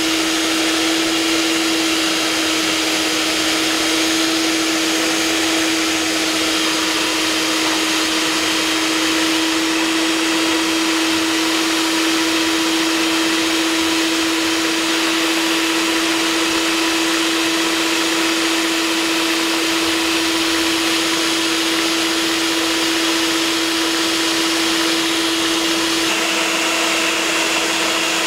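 Electric stand mixer running at a steady speed, beating cake batter; its motor gives a constant, even hum.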